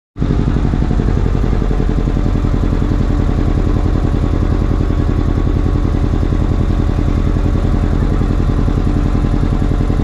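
A small boat's engine running steadily at an even speed, heard from on board while the boat travels along the river.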